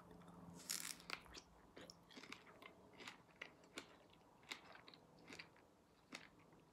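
A person biting into and chewing a fresh strawberry. The chewing is faint: soft, irregular mouth clicks and smacks, about two or three a second.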